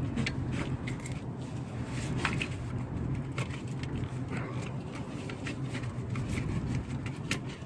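Irregular clicks, clinks and scrapes of hand tools and parts working on metal under a car's hood, over a steady low hum.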